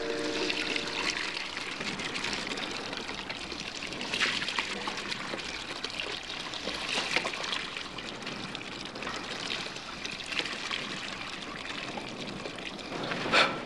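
Water from a cast-iron hand pump pouring and trickling into a wooden bucket, a steady splashing, with a sharp knock near the end.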